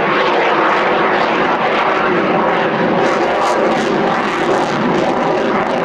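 Jet engines of a Russian twin-engine fighter in flight: a loud, steady rush of noise with a low hum running through it.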